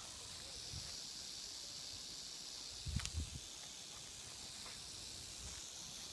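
Northern Pacific rattlesnake rattling its tail: a faint, steady, dry high-pitched buzz. A single bump with a low thud about three seconds in.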